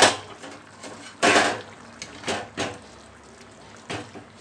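A steel plate used as a lid is lifted off a kadai of curry with a sharp clank, then a steel spoon stirs the curry, scraping and knocking against the pan a few times.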